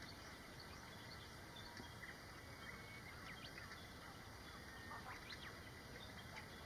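Faint, scattered chirping bird calls, most of them about three and five seconds in, over a steady, quiet outdoor background hiss.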